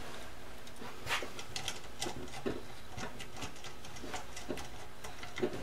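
Scattered faint clicks and taps of small hardware being handled: a plastic mount with its M5 bolts and nuts being set onto an aluminium extrusion frame.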